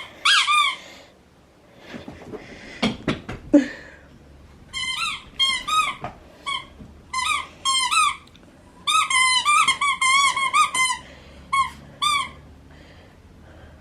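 Rubber squeaky toy squeezed over and over in quick runs of short, wavering squeaks during play with a pet, with a few knocks about three seconds in.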